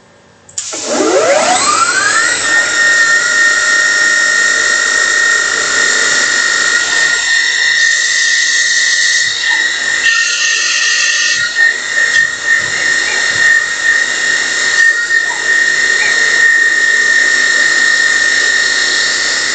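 DIY CNC lathe spindle starting about half a second in, its whine rising quickly in pitch, then holding a steady high whine at 3000 rpm while the multi-turn tool cuts, with short patches of cutting hiss around the middle.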